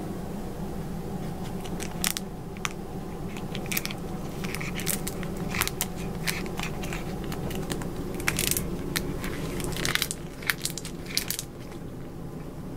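Irregular crinkling and crackling of a small sachet of silvervine powder as it is handled and nosed at by a cat and a small dog. The clicks come in scattered clusters over a steady low hum.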